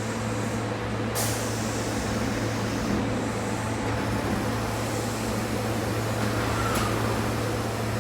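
Osaka Metro Midosuji Line train at a station platform: a steady low electrical hum under a noisy rush. A hiss sets in about a second in, and there is a short sharp tick near the end.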